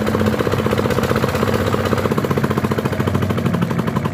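Petter diesel engine running steadily with a fast, even exhaust beat. It is driving a water pump that has not yet picked up water, with air still in the pump.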